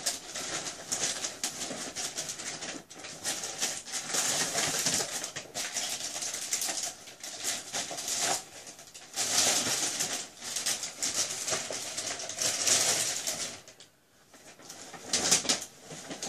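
Paper shopping bags and a plastic bag rustling and crinkling as items are rummaged for and pulled out, in irregular bursts with a short lull near the end.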